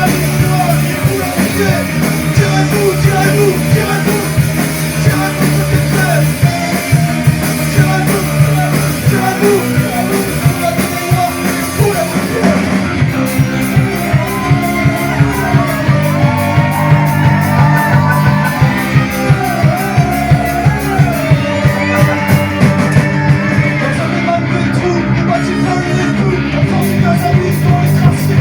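Rock band playing live, with a steady driving drumbeat and a voice singing over it through the middle.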